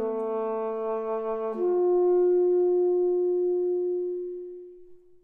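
Reed quintet of oboe, clarinet, saxophone, bass clarinet and bassoon playing contemporary chamber music: sustained chords shift at the start and again about a second and a half in, then thin to a single held note that fades away near the end.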